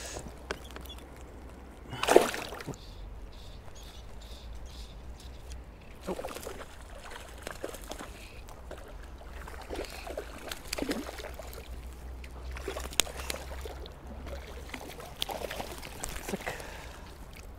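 Stream water sloshing and trickling, with a short louder burst about two seconds in and scattered small splashes later on.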